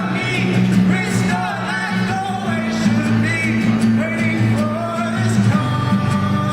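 A man singing a song with guitar accompaniment, his voice rising and falling in sung phrases over steady guitar chords.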